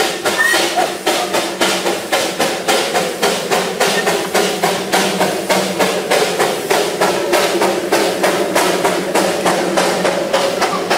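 Darjeeling Himalayan Railway B-class 0-4-0 saddle-tank steam locomotive working past at close range, its exhaust beating in an even rhythm of about four chuffs a second.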